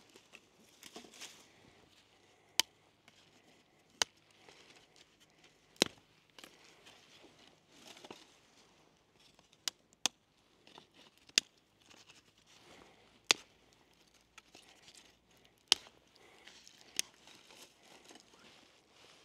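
Small firewood being worked by hand: about nine sharp wooden cracks at uneven gaps of one to four seconds, with soft rustling and crinkling between.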